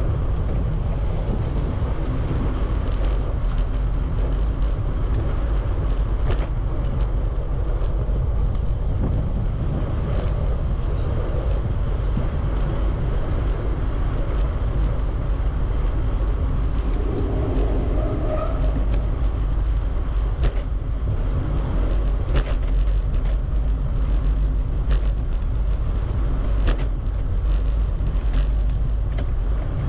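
Steady rumble of wind and road noise on a bicycle rider's camera microphone while riding, with traffic noise and occasional sharp clicks every few seconds.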